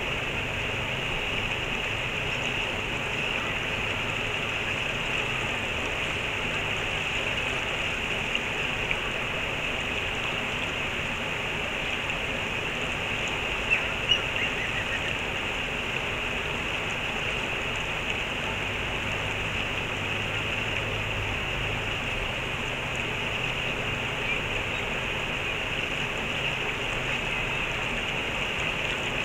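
Stream water rushing steadily, with a couple of faint clicks about 14 seconds in.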